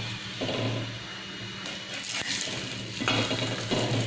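Metal spatula scraping and clinking against a tawa (flat griddle) as a roti is turned over, with oil sizzling under the roti. The clinks and scrapes come in a cluster during the second half.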